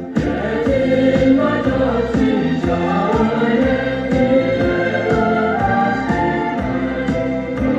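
Choir singing a Christmas carol with instrumental backing and a steady beat, played from a record on a Bush SRP51 record player.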